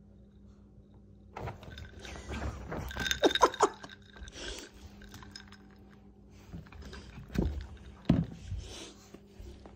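Ice clinking in a handheld glass of fizzy drink amid handling noise, loudest about three seconds in, followed by a few separate thumps.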